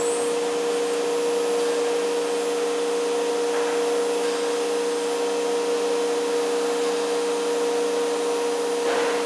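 Talent CNC router running as it cuts a melamine sheet: a steady, unchanging whine from the spindle over an airy rush of suction.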